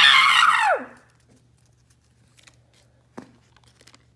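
A child's high-pitched squealing voice for under a second, sliding down in pitch at the end. Then faint clicks and light handling of toys, with one sharper click about three seconds in.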